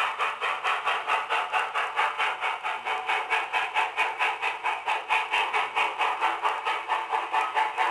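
Nickel Plate Road 2-8-4 Berkshire steam locomotive passing at low speed, its exhaust chuffing in a steady, even rhythm of about five beats a second.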